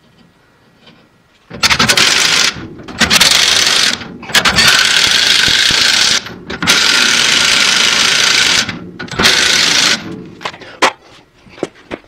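Cordless impact wrench hammering in five bursts of one to two seconds each, running down the bolts that hold a lever-type shock absorber to the frame of a 1939–48 Chevrolet, followed by a few light metal clicks near the end.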